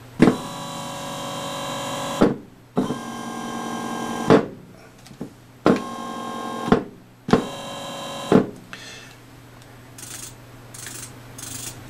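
DC motor driven through a BTS7960 motor driver by an ESP32, run in four short spurts of about one to two seconds each. Each spurt is a steady whine with a sharp click as it starts and stops. Fainter short high whirs follow near the end.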